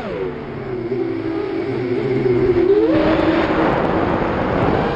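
QAV210 racing quadcopter's brushless motors and propellers whining on a 4S battery. The pitch falls sharply at the start as the throttle comes off, wavers lower, then rises with a surge of rushing prop and air noise about three seconds in.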